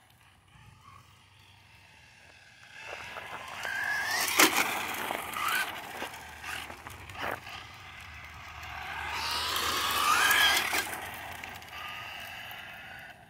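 Remote-control car's electric motor whining as the car speeds up and passes twice, its pitch rising with speed, over a hiss of small tyres on rough ground. Two sharp knocks about four and seven seconds in, as the car bumps or lands.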